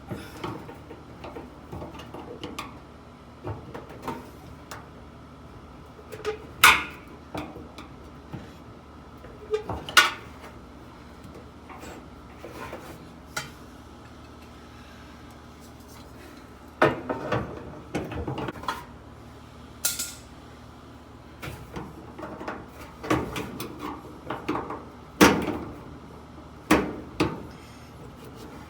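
Irregular clinks, clicks and knocks of hand tools and metal dryer parts being handled, with a few louder knocks about 6.5, 10 and 25 seconds in.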